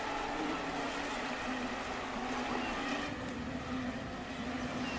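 Mosquitoes buzzing: a steady, slightly wavering drone.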